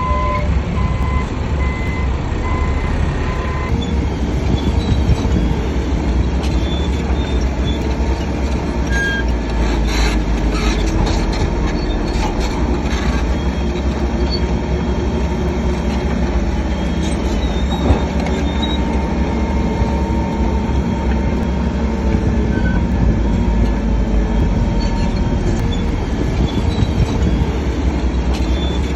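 Heavy diesel earthmoving machinery running steadily: a reversing beeper sounds for the first few seconds over the low engine rumble. Metal squeals and clanks come through around the middle, with one sharp knock later on.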